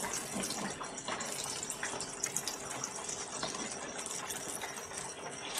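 Hot oil sizzling and crackling steadily around masoor dal kofta balls deep-frying in a pan, the kofte already golden-brown.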